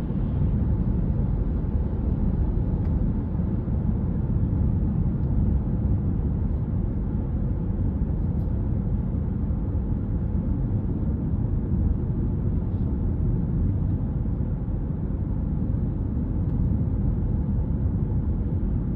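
Steady engine and road rumble inside the cabin of a car driving along.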